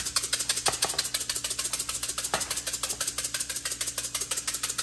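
Twist-top black peppercorn grinder being turned, a fast, even run of small ratcheting clicks as the peppercorns are cracked.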